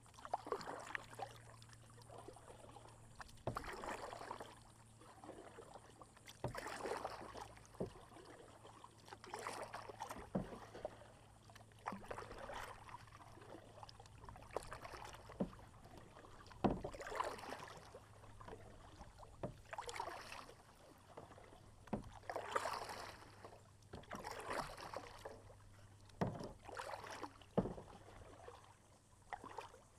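Kayak paddle strokes, the blades splashing in and dripping out of the water every two to three seconds, with occasional sharp knocks among them.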